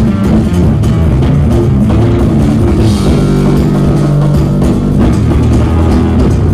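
Jazz-fusion band playing live: drum kit, electric guitar, bass and keyboards together, with held notes about three seconds in.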